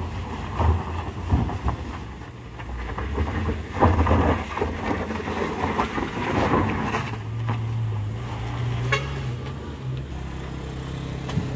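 Compact SUV's engine pulling hard up a steep loose gravel slope, its tyres scrabbling on stones with uneven surges. Later it settles into a steadier, slightly rising engine note.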